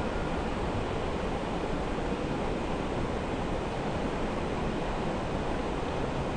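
Flowing river water rushing steadily, an even hiss with no distinct calls or knocks.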